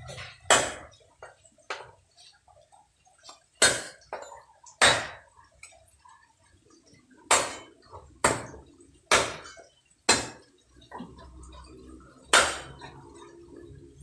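A cleaver chopping thin sticks on a wooden chopping block: about nine sharp chops at uneven intervals, each with a brief ring of the blade.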